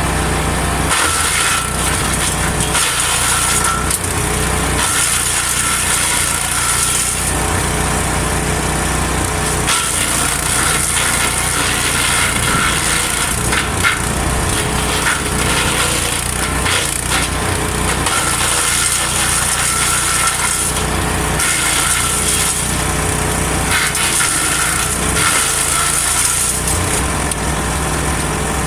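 Engine-driven garden wood chipper running steadily while branches are fed through it, with bouts of crackling and splintering as the wood is chipped.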